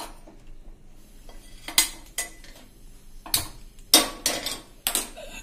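Kitchen utensils being handled: a pan knocked on a gas stove's metal grate and steel spoons clinking. About half a dozen sharp metallic clinks and knocks, starting nearly two seconds in.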